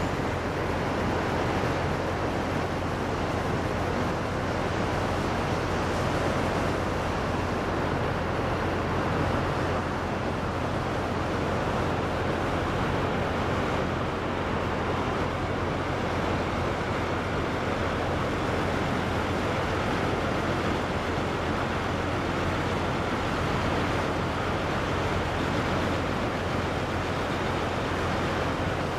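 A steady, even rushing roar with no distinct events, the ambient noise of the river gorge.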